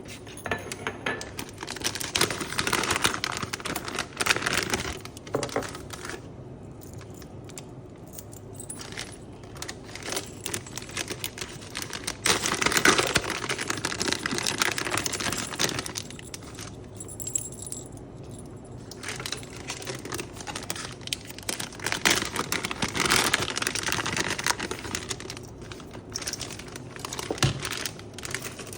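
Metal keychains jingling and clicking as they are handled, with stretches of plastic packaging rustling and crinkling.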